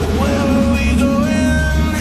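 Background music with a heavy, steady bass and a held melody that slides up in pitch just after the start.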